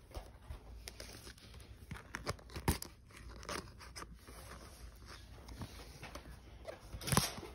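Scissors and fingers working at a doll's cardboard-and-plastic packaging and its wire ties: scattered small clicks, snips and crinkles, with a louder click about a third of the way in and a cluster of louder ones near the end.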